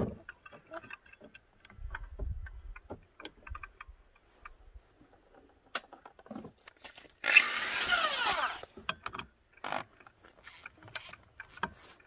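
Scattered metallic clicks and knocks as scooter variator and drive-belt parts are handled and fitted by hand. Past the middle comes a whirring of about a second and a half that falls in pitch.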